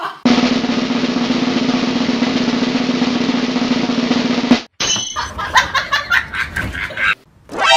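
A snare drum roll, held steady for about four seconds and cutting off suddenly, followed by a short stretch of rhythmic percussive music.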